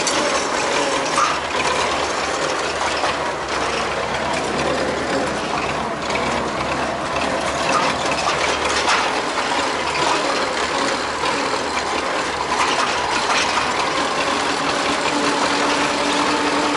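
Tractor engine running steadily under the continuous clatter and rattle of working machinery.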